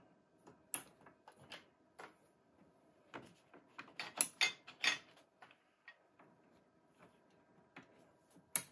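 Irregular clicks and knocks of Ethernet patch-cable plugs being pushed into network switch ports and the cables handled, with a denser, louder run of clicks about halfway through and one sharp click near the end.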